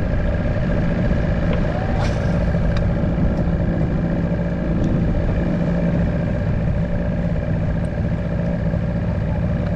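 Wind rushing over the microphone, with a boat's motor running steadily underneath.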